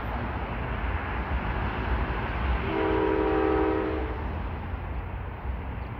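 An approaching passenger train's locomotive horn sounds one chord blast of several notes, lasting about a second and a half, a little before halfway through, over the train's steady low rumble.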